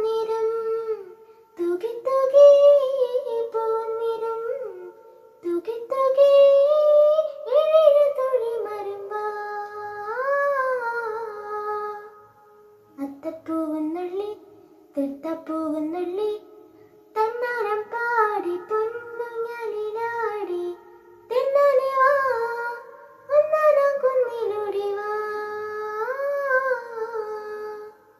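A child singing a slow Malayalam Onam song, with long held and gliding notes in phrases separated by short breaths.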